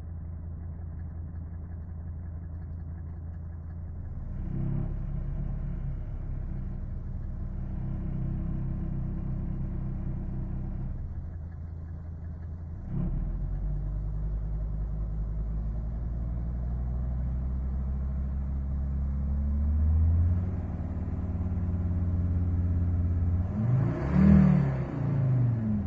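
Mercedes-Benz W124 250D's five-cylinder diesel engine running, with a faulty belt tensioner and vibration absorber (crankshaft damper). It gets louder in steps partway through, then is revved up and down a couple of times near the end.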